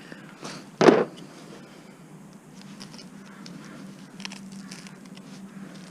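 Dishwasher motor being taken apart by hand for scrap: one loud knock about a second in, then light clicking and rattling of small parts being handled.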